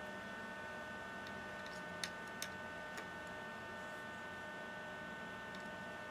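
A few light ticks about two to three seconds in as the build-plate screws of a Creality Halot One Plus resin printer are tightened, over a steady electrical hum with a few faint high tones.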